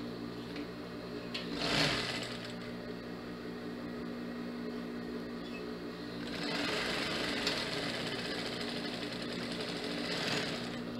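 Jontex JT-8900 industrial lockstitch sewing machine stitching a seam: a short run about two seconds in, then a longer run of stitching from about six seconds to near the end, over a steady hum.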